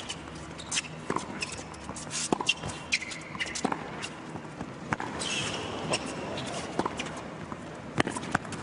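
Tennis rally on an indoor hard court: sharp racquet strikes on the ball about every second and a half, with ball bounces and shoe squeaks between them.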